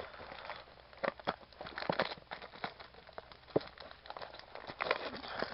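Cardboard trading-card hobby box being pried and torn open by hand: irregular crackling and crinkling with several sharp snaps of the cardboard.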